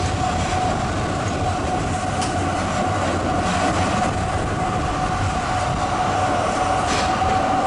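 Zürich tram running along street track, heard through an open side window: a steady rolling noise of wheels on rail with a steady high whine throughout, and a couple of faint clicks.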